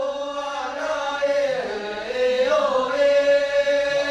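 Singing voices holding long, slow notes that slide from one pitch to the next.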